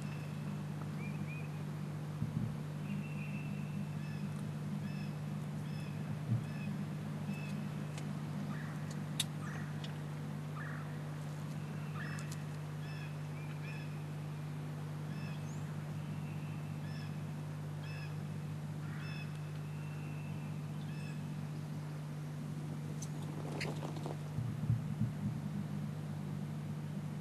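Wild turkey calling: a run of short yelping notes about a third of the way in and a louder call near the end. Small songbirds chirp throughout over a steady low hum, with a few soft knocks near the end.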